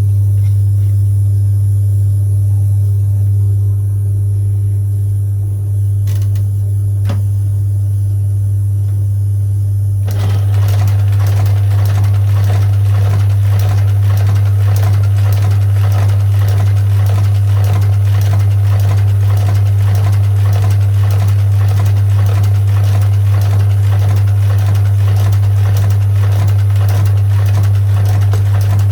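Shoe sole-stitching machine: its motor hums steadily, and about ten seconds in it starts stitching with a fast, even mechanical clatter that runs on, sewing a row of stitches through the sole.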